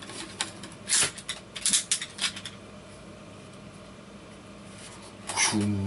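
Plastic clicks and rattles as the telescoping blade of a toy lightsaber is handled and extended. Near the end a short burst of noise comes from its speaker, followed by a steady low electronic hum.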